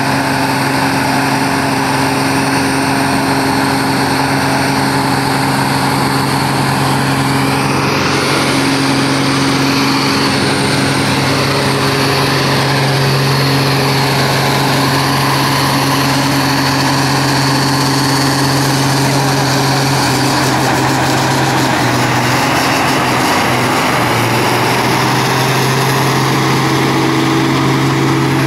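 Logging truck engine running under load with logs aboard: a steady low drone that shifts pitch a few times.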